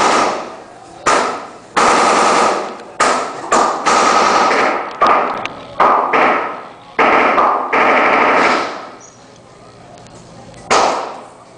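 Gunfire on a shooting range: about ten loud shots and short bursts of rapid automatic fire, each ending in a decaying echo, with a pause near the end before one last shot.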